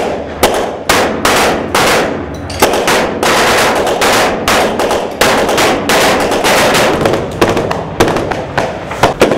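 Rifle gunfire: a long, dense run of shots in quick succession, several a second and irregularly spaced, with the echo filling the gaps between them.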